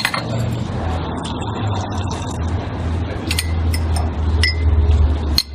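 Coffee machine running with a low steady hum, with a few light clinks.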